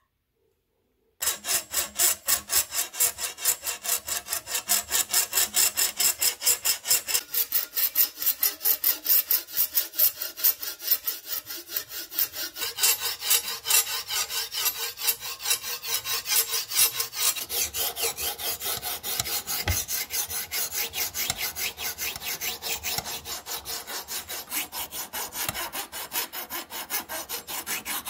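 Flat hand file rasping back and forth along the steel edge of an old sword blade to sharpen it, in quick, even strokes, several a second. The filing starts about a second in, after a brief silence.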